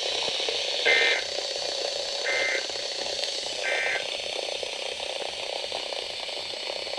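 NOAA Weather Radio Emergency Alert System end-of-message code: three short bursts of two-tone digital data, about a second and a half apart. The tones sound over steady radio static, which marks the end of the warning broadcast.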